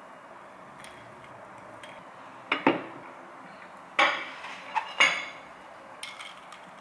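Glassware and a ceramic plate clinking and knocking as they are handled and set down on a wooden tray. There are sharp clinks with a brief ring, two about two and a half seconds in and several around four to five seconds, then lighter clinks near the end, as a glass straw goes into an iced drink.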